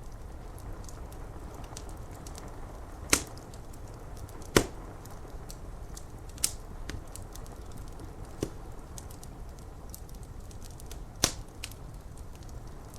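Wood fire crackling, with many small ticks and five loud sharp pops spread through, over a steady low rushing background.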